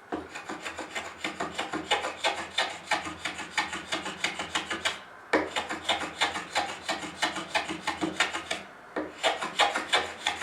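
Sharp hand plane shaving a small wooden pistol-grip end cap in rapid, short rasping strokes, bevelling its edge, with two brief pauses about five and eight and a half seconds in.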